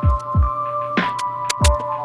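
Background electronic music with a steady beat: deep kick drums that drop in pitch, sharp snare hits, ticking hi-hats and held synth tones.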